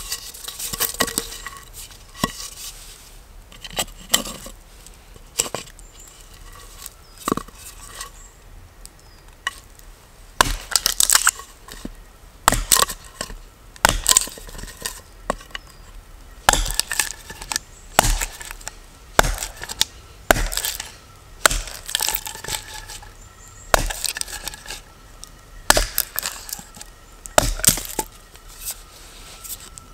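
Fiskars Norden N10 hatchet, held short near the head, chopping and shaving the end of a wooden branch against a tree stump. Sharp wooden chops come irregularly, about one a second, with light rustling between strokes.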